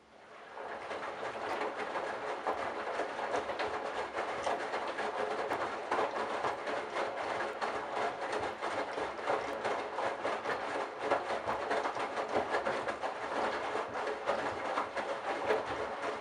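Candy Bianca washing machine starting up again after a quiet pause, about half a second in: the drum turns with wet towels and a bathrobe inside, a dense, steady clattering and rushing noise.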